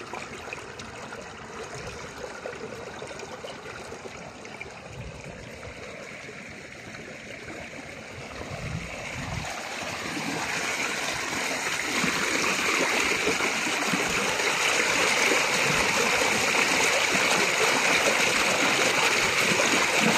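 Water spilling over a broken plastic pipe into a ditch, then muddy runoff rushing and splashing through a narrow cut in an earthen bank, growing louder about halfway through and then flowing steadily.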